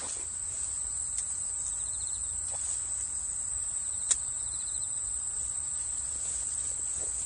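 Insects chirring steadily and high-pitched in waterside reeds, with two short trills. A single sharp click comes about four seconds in, as a rod is cast.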